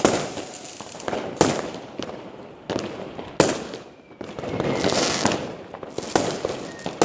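Fireworks going off on all sides: a string of separate sharp bangs, each dying away in crackle and echo, with a hissing crackling swell about five seconds in.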